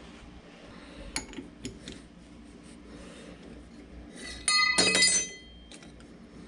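Metal clinks of a chuck key being worked in a lathe's four-jaw chuck to release a steel shaft, with a loud ringing metal clang about halfway through.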